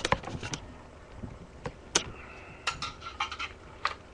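Scattered light clicks and knocks of computer hardware being handled, as a desktop power supply is picked up: a quick cluster at the start, then single taps every half-second or so.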